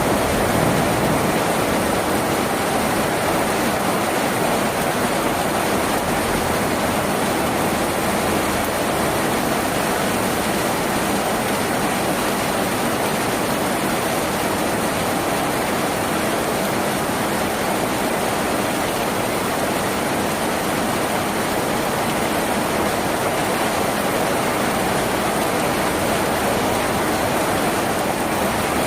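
Steady rain falling on a tin roof, an even, unbroken hiss.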